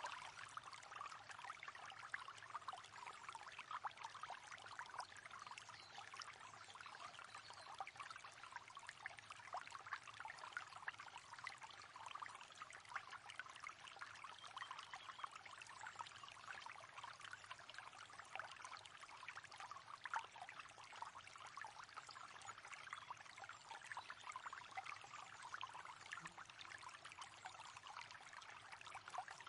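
River water flowing and trickling steadily, a continuous fine splashing with no breaks.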